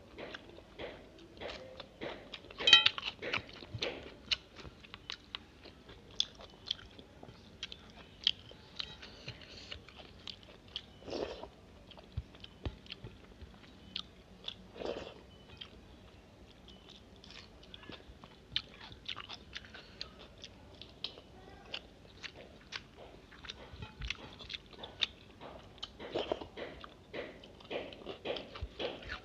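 Close-up wet chewing and lip smacking of a person eating a mouthful of rice and egg curry by hand, with many small mouth clicks and a sharper crunch about three seconds in.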